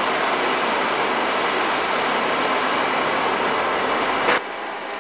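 Hair dryer on high, used as the blower of a brake drum charcoal forge, forcing air through the pipe into the burning charcoal: a steady rushing noise. Near the end a short click, then the noise drops to a lower level.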